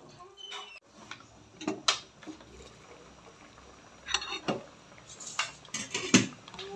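Metal kitchenware clattering: a series of sharp, irregularly spaced clinks and knocks of a stainless steel bowl and a cooking pot, with quiet gaps between them.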